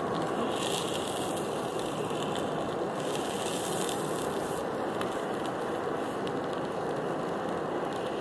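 Handheld gas blow torch running with a steady hiss, its flame played onto burnt paint in a steel bowl.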